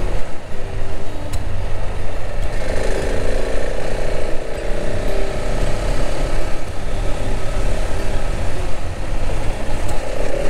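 Husqvarna 701 single-cylinder motorcycle engine running while riding on a gravel track, with heavy wind rumble on the helmet camera's microphone. A steadier drone comes in about three seconds in and holds until near the end.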